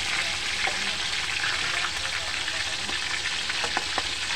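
Pork hock deep-frying in a wok of hot oil: a steady, dense crackling sizzle, with a few sharp clicks near the end.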